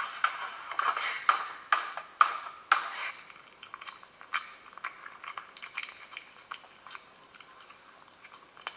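A pug chewing a banana, with soft, scattered wet smacking clicks. Before that, for the first three seconds, a run of quick swishing strokes about two a second fades out.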